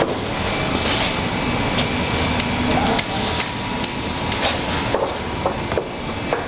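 Workshop background: a steady hum with irregular sharp knocks and clicks, roughly one every half second to second, like tools at work.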